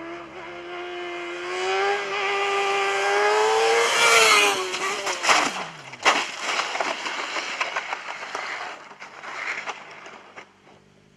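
Motorcycle engine at high revs approaching, its pitch and loudness climbing, then its pitch dropping steeply as it passes. About six seconds in comes a sharp crash, followed by the bike and rider scraping and clattering along the asphalt, fading out.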